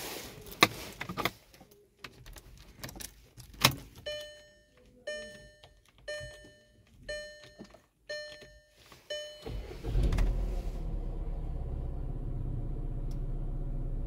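Keys rattling as the ignition key is handled and turned. The dashboard warning chime then sounds six times, about once a second. About nine and a half seconds in, the Tiguan's 2.0-litre turbocharged four-cylinder engine starts and settles into a steady idle.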